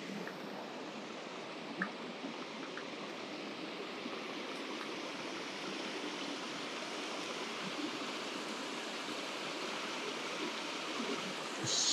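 Steady rush of a small mountain stream running over rocks, with one faint click about two seconds in and a brief sharper hiss at the very end.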